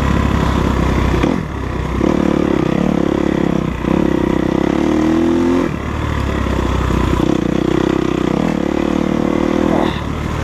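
Enduro dirt bike engine running under way, the throttle opening and closing. The revs drop briefly three or four times, and the pitch climbs in between.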